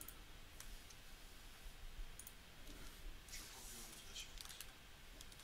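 Faint, scattered clicks of a computer keyboard and mouse as code is typed into an editor.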